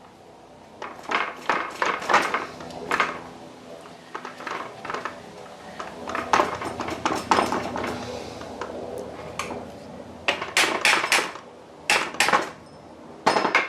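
A steel wedge tool clinking and scraping against the gears and shaft of a Harrison M300 lathe's feed gearbox, in irregular clusters of sharp metallic taps. It is being used to pry a stuck gear along its shaft, and the gear does not shift.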